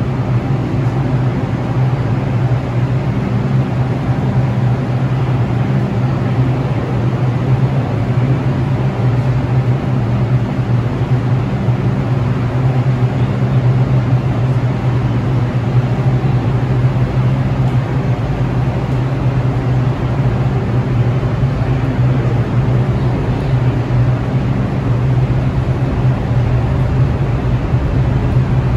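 New York City subway train running: a steady, loud rumble with a constant low hum.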